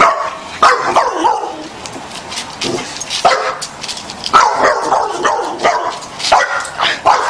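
A dog barking and yipping in a string of short, loud calls, some sliding down in pitch, as it is worked up by a tortoise chasing it.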